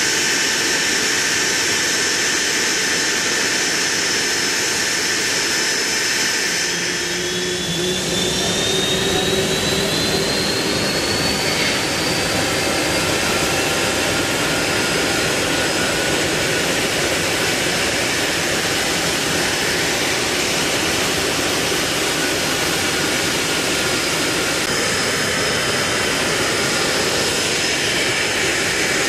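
Nimrod maritime patrol aircraft's Rolls-Royce Spey turbofan engines running on the ground, a steady loud jet noise with a high whine. About seven seconds in, a rising whine comes in as an engine spools up.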